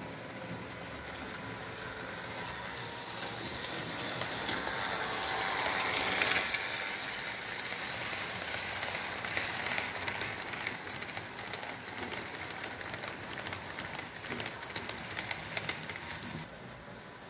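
Model BR 151 electric locomotive and its block train of freight wagons running past on model track. It builds to its loudest about six seconds in, then the wagons roll by with a run of rapid light clicking that drops away shortly before the end.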